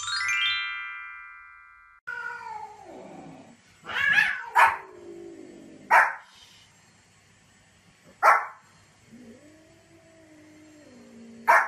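A bright chime rings and fades over the first two seconds. Then a dog makes long whining calls that fall and waver in pitch, broken by about five short, sharp barks.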